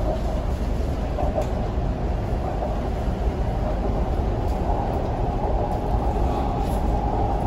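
MTR C-train metro car running, heard from inside the carriage: a steady rumble of wheels on rails with a motor hum over it that grows a little stronger later on.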